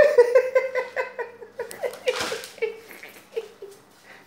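A person laughing close to the microphone in a quick run of short pitched 'ha' pulses that slow and fade. A brief scraping rustle comes about two seconds in.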